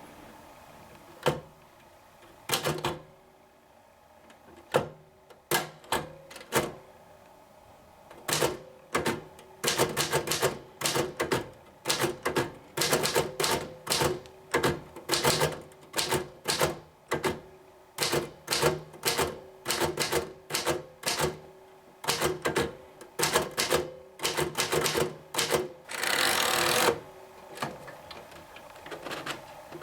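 A 1929 Royal Model P manual portable typewriter being typed on, each key throwing its typebar against the platen with a sharp clack. A few slow, scattered keystrokes give way to quick, steady typing, with a second-long rasping sound near the end.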